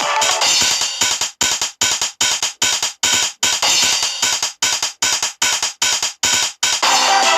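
Electronic dance music from a Groovepad loop pack, with synth and drum-machine parts. About a second in it breaks into short chopped stabs, about three a second, and the full mix comes back near the end.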